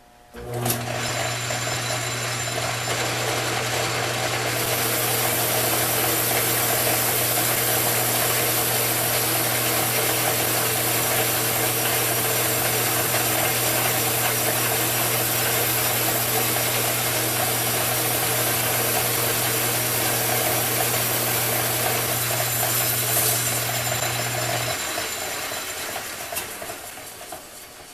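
Logan metal lathe starting up and running steadily while its cutting tool turns down a spinning Schedule 80 PVC pipe, shaving it off as one continuous plastic thread. A high hiss from the cut runs over the motor's steady hum through most of the pass; near the end the motor switches off and the chuck spins down.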